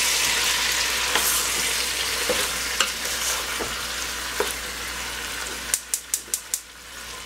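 Beef chunks sizzling as they sear in hot oil and butter in an enamel pot, with a wooden spoon scraping and knocking as the pieces are flipped. Near the end the sizzle eases and a quick run of about five sharp clicks sounds.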